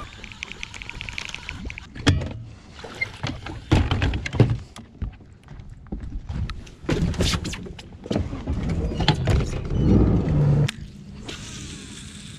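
Baitcasting reel wound in fast, a rapid even ticking for the first second or so, then a series of knocks and thumps from rods and gear being handled on a bass boat's deck.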